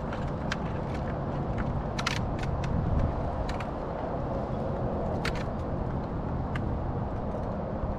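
Steady low rumble of wind buffeting the microphone. Several short sharp clicks and knocks are scattered through it, from gear being handled on the kayak.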